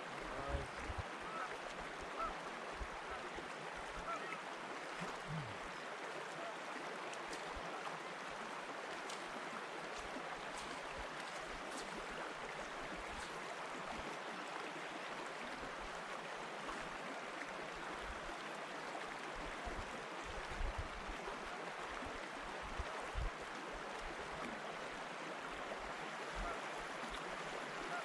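Steady noise of wind and lake water lapping at the shore, with irregular low gusts buffeting the microphone.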